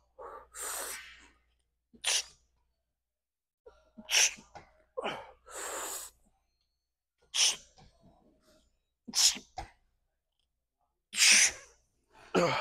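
A man's heavy, forceful breaths through the mouth, about seven short sharp puffs a second or two apart: catching his breath after hard exertion on a set of dumbbell work.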